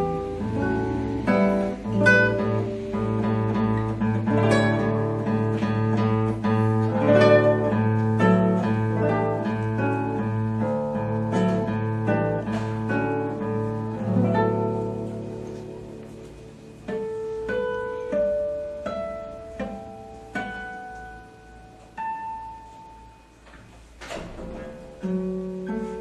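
Instrumental music of plucked strings: a busy passage of many notes for about the first half, then thinning out to single notes that ring on, one every second or so.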